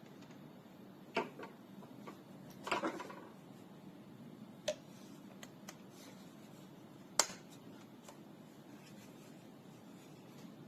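A few scattered sharp clicks and light knocks, like small hard objects being handled, over a low steady room hum; the loudest click comes about seven seconds in.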